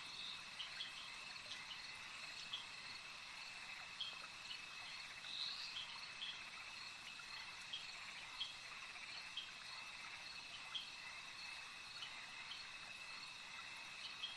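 Crickets trilling steadily at two high pitches, with short separate chirps every half second or so. This is a night-time insect ambience.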